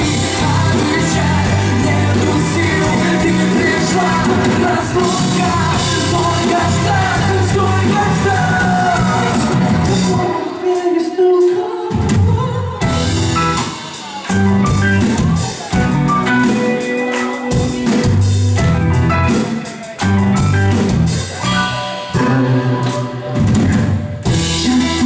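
A live rock band playing, with a drum kit; the bass drops out for about a second and a half about ten seconds in, and the band stops in several short breaks after that.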